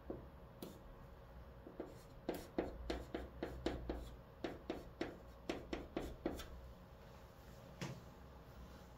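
Chalk writing on a chalkboard: a quick run of short taps and scratches as character strokes are written, about three or four a second, densest from about two to six seconds in, then a single stroke near the end.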